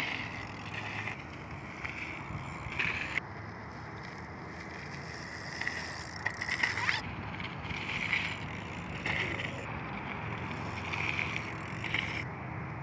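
Bicycles rolling along a dirt trail, tyres crunching over gravel, with the rattle and a few sharp clicks from the bikes.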